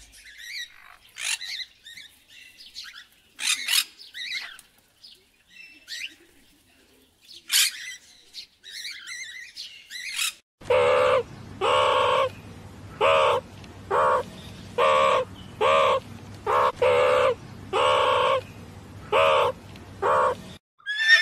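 Small birds chirping in short, scattered high notes. Then, about halfway through, a run of about a dozen loud, evenly paced harsh calls over a steady low hum.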